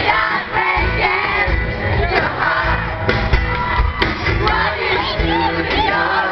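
Live band music with a sung lead melody over a steady beat, and a crowd singing and shouting along.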